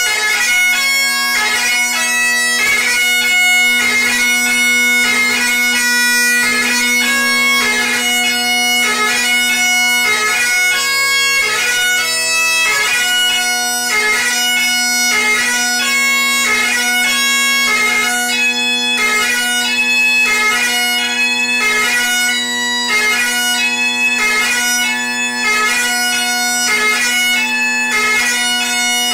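Solo Great Highland bagpipe: the steady drone sounds unbroken beneath the chanter's melody of quick, ornamented notes.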